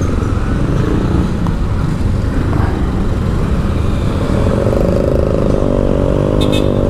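Steady street traffic rumble, joined about four seconds in by a vehicle engine running close by, its pitch wavering slightly, with a couple of light clicks near the end.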